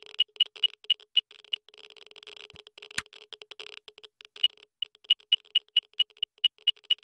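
Cartoon sound effect of the coolometer, a handheld meter, taking a reading: short high electronic beeps about four a second, like a Geiger counter. A stretch of faster, fainter crackling runs through the middle, and the beeps come slightly quicker near the end.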